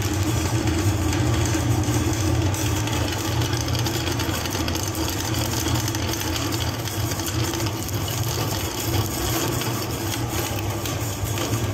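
Electric meat grinder running steadily with its hopper empty, the motor and auger giving an even hum.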